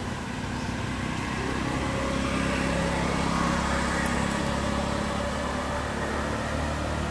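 A motor vehicle's engine running as it goes by, with a low hum that grows louder to a peak around the middle and then fades.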